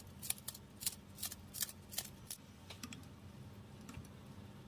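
Kitchen scissors snipping a green onion over a pot of soup: about seven quick, crisp snips in the first two and a half seconds. Then a few soft knocks as a spoon stirs the pot.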